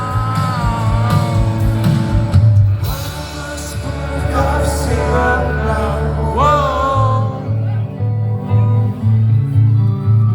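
Live rock band playing with a male lead vocalist singing over guitars, bass and drums. Sung notes slide in pitch near the start and again past the middle, and the bass pulses in an even beat in the second half.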